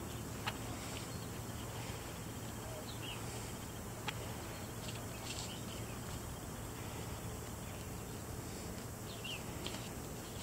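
Steady outdoor background noise with a low hum, and a few faint short chirps from small birds, about three seconds in and again near the end.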